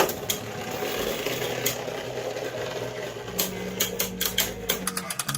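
Beyblade Burst spinning tops battling in a stadium: a fast, continuous rattle of clicks and scraping as the tops grind and clash. A low steady hum comes in past the middle, and the clicks get denser near the end.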